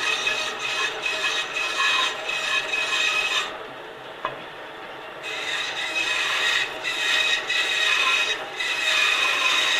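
Bandsaw with a 1/4-inch blade cutting a wooden cabriole leg blank, a steady rasping cut. The cut eases off for a couple of seconds past the middle, leaving the saw running free, then resumes.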